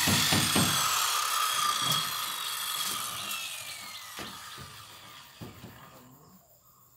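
Handheld circular saw coasting down after a cut through plywood: a steadily falling whine as the blade spins down over about four seconds, with a few light knocks as the saw is handled.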